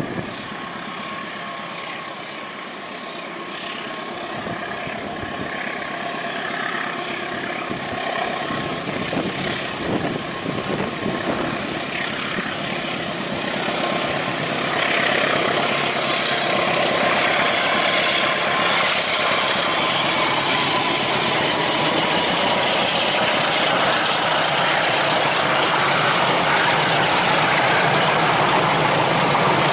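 Diesel-electric locomotive hauling a long passenger train on a hill grade, its engine running steadily and growing louder as it approaches. About halfway through it turns steady and louder as the locomotive draws near and the carriages roll past.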